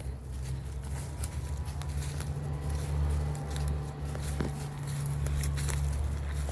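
Footsteps on a hiking trail: scattered light clicks and crunches over a steady low rumble.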